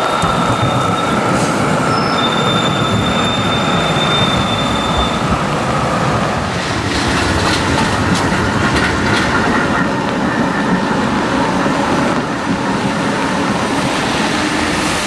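Oslo trams running past on wet rails: steel wheels squealing in high, steady tones for the first five seconds, then a rumble with a run of clicks as a long low-floor tram passes close.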